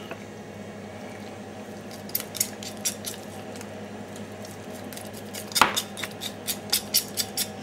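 Knife cutting and scraping through a raw turkey leg as it is boned: scattered short clicks and wet squishing of the meat, with a louder click a little past halfway and a quick run of clicks near the end.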